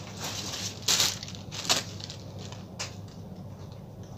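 Rustling and handling noise from a person getting up and moving off, with a knock about a second in and short sharp clicks a little later and again near three seconds.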